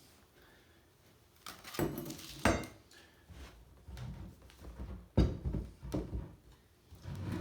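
Handling noises: a few sharp knocks with rustling in between, the loudest knock about two and a half seconds in.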